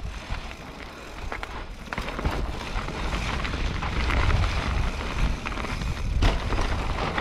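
Rockrider AM100S mountain bike riding down a loose, slippery dirt trail, heard from a helmet-mounted camera: tyre noise on the dirt and rattling from the bike, with wind rumble on the microphone that grows louder as the bike picks up speed. A few sharp knocks from the bike.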